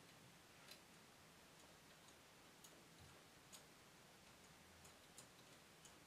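Near silence with a few faint, irregular clicks of metal latch needles on a knitting machine's needle bed as stitches are worked by hand.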